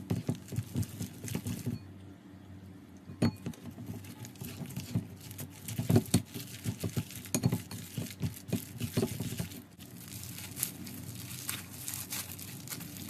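Slime being squeezed and kneaded by hand: irregular sticky clicks, pops and squishes, in clusters with quieter gaps, thinning out near the end.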